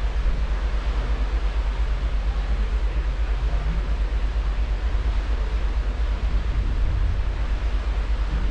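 Steady low rumble and rush of the cruise ship Koningsdam under way, heard from its aft balcony: the churning wake and the ship's machinery, with wind fluttering on the microphone.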